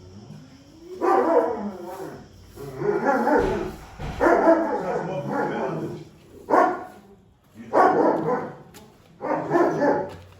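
A dog barking in about six bouts, each a second or two long, with short pauses between.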